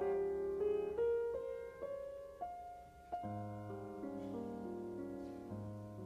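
Background instrumental music: a melody of single notes over held lower notes, with a deeper bass note coming in about three seconds in.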